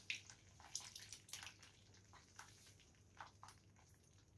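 Faint drips and small ticks of lemon juice squeezed from a metal hand press falling into a pan of thick, hot chutney, busiest in the first second and a half, then sparse.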